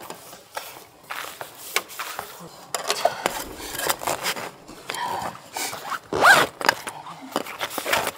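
A tent zipper rasping in short pulls, mixed with the rustle and scrape of nylon tent fabric and a flexible heater duct hose being worked through the tent wall; the loudest, sweeping pull comes a little past the middle.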